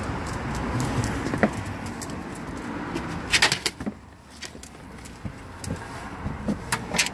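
Steady outdoor traffic hum, then a clatter of knocks about three and a half seconds in as lurchers clamber into a car's back seat, followed by quieter scuffling of paws on the seat and a sharp knock near the end.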